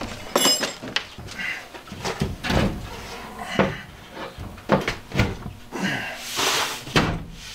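Thin wooden panel knocking and bumping against a school bus's ceiling as it is pushed up into place, with scattered thumps and clicks, a brief ringing rattle about half a second in and a short scrape near the end.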